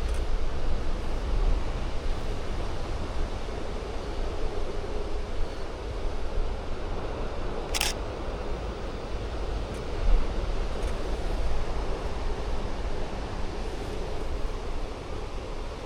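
A steady outdoor rushing background with a low rumble on the microphone. About eight seconds in, one sharp click is heard, fitting a DSLR shutter being fired.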